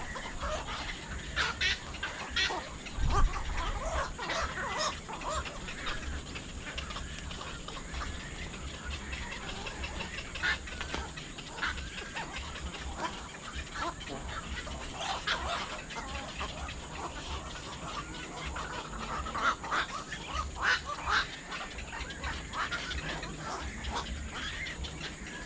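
A flock of birds calling: many short calls overlapping, one after another, without a break.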